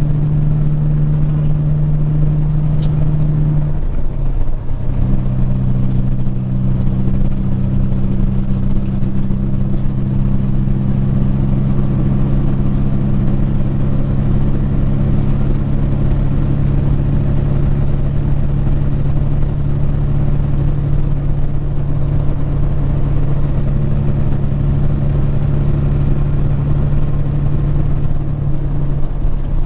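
Peterbilt 379 semi truck's diesel engine running steadily at highway cruise with road noise; about four seconds in the engine note drops to a lower pitch and holds there.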